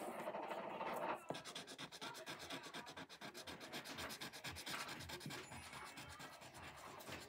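A colouring tool rubbing quickly back and forth on paper in rapid, even strokes as a shape is coloured in. A louder rustle of paper comes in the first second.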